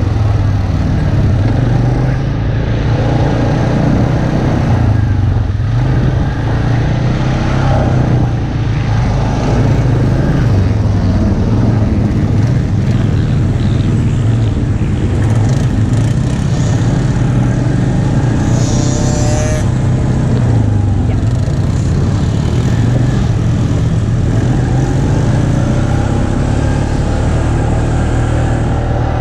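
ATV engine running steadily while riding along a dirt trail, a low, even drone mixed with tyre and wind noise.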